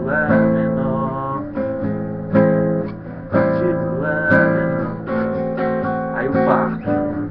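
Acoustic guitar strumming chords in its A minor section, a new stroke roughly every second, each chord ringing on between strokes.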